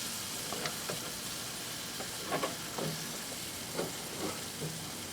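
Sauce-basted baby back ribs sizzling on a grill: a steady, even hiss, with a few soft taps scattered through it.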